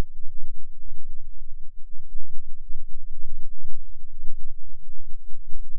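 A loud, deep rumble that swells and dips unevenly.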